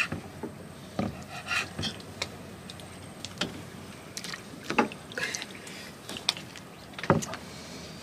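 Kitchen knife cutting sea cucumber on a wooden cutting board: scattered short knocks and taps.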